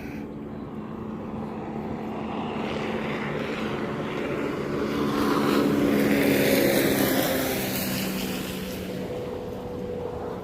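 Jet ski engine running as it passes by on the water. It grows louder to a peak about six seconds in, then fades with its pitch dropping slightly.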